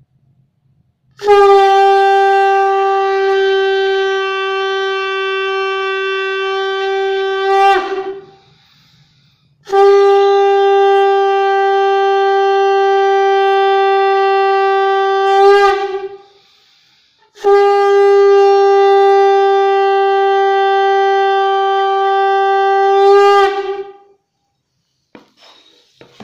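Conch shell (shankha) blown three times, each a long steady note of about six seconds with a slight upward lift in pitch as it ends. These are the customary three conch blasts that open a Hindu prayer.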